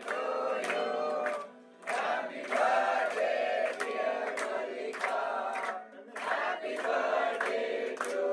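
A group of voices singing a song together in chorus, with regular sharp beats.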